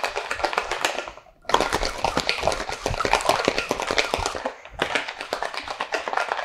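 Ice cubes rattling hard inside sealed metal shaker tins: the wet shake of an egg-white cocktail, after its dry shake. A fast, dense rattle in three long spells, with brief breaks about a second and a half in and again near five seconds.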